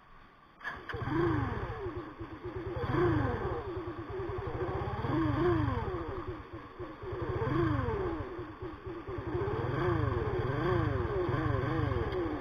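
Sigma 250cc motorcycle engine starting about half a second in, then revved over and over with the throttle, the pitch rising and falling every second or two.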